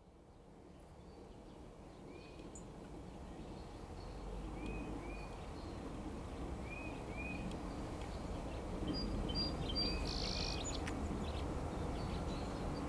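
Low rumble of a distant diesel freight train approaching, growing steadily louder. Birds chirp over it in short pairs of notes every second or two.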